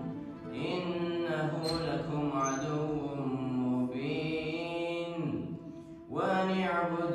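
A young man's solo voice reciting the Quran in long, drawn-out melodic phrases through a microphone. About five and a half seconds in there is a short breath pause, and then the next phrase begins.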